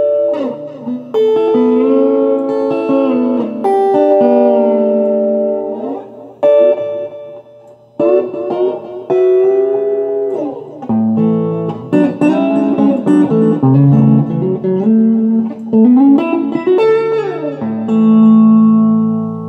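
Electric guitar played through a 1980s Peavey Heritage VTX tube amplifier driving a silver-cone Peavey Black Widow 1201-8 speaker, on the clean channel: single-note lines with string bends and slides, ending on a held chord. A speaker test that the owner judges a winner.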